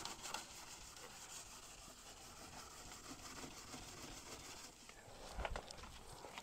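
Faint rubbing of a hand scuffing the old paint on a car's steel door panel, with a couple of low knocks about five seconds in.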